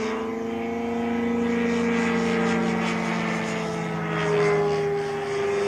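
Propeller-driven airplane flying overhead, its engine droning steadily with a slight shift in pitch and a brief swell in loudness about four seconds in.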